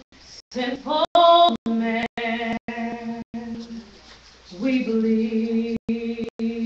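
A woman singing solo into a microphone in long held notes, heard through a live phone stream that cuts out briefly several times.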